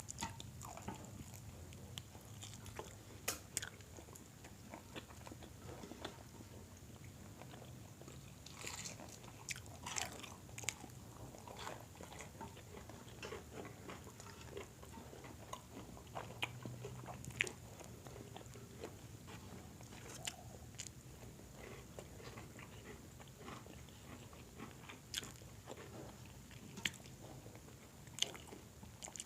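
Close-miked eating: a person biting and chewing crispy fried chicken, with irregular crunches and sharp mouth clicks.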